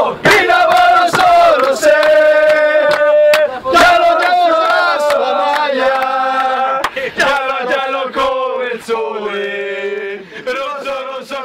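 A group of male voices sing a football supporters' chant in unison, with long held notes and a few sharp hits. It fades out near the end.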